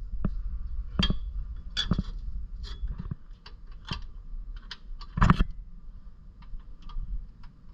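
Irregular metallic clinks and taps of a bolt and lift-kit bracket being handled and fitted into the rear shock mount, with one louder clank about five seconds in.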